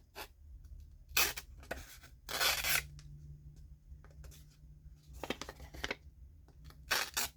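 Scoutrat folding knife's 14C28N steel blade slicing through paper in about five or six quick strokes, each a short tearing swish, the longest about two and a half seconds in. It is a paper-cutting test showing the blade is very sharp.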